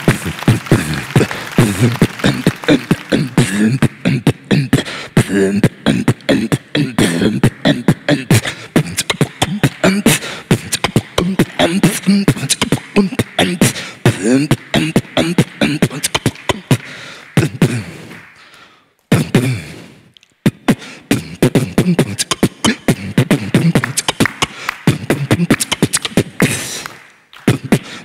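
Human beatboxing into a handheld microphone in a western DJ-music style: rapid mouth-made kick, snare and hi-hat clicks over hummed bass tones. It breaks off for about a second two-thirds of the way through, then picks up again.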